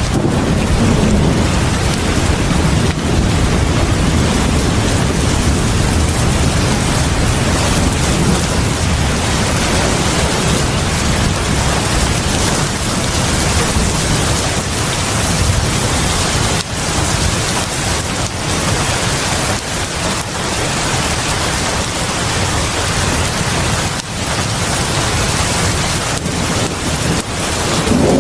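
Heavy rain pouring steadily onto a porch, a dense loud hiss with a deep rumble underneath that is strongest in the first few seconds.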